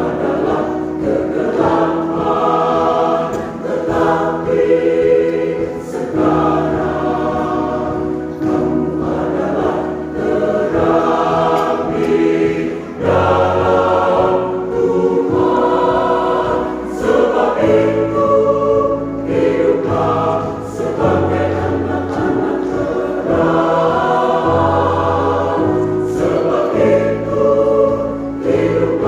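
Church choir singing a hymn in parts, in phrases of about two seconds with short breaks for breath between them.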